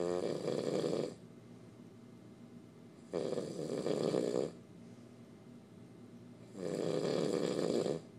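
A sleeper snoring: three long snores, about three seconds apart, with quiet breathing pauses between them.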